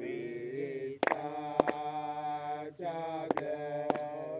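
A group of men's voices chanting together, holding long notes that slide between pitches, with four sharp strikes in two pairs about half a second apart.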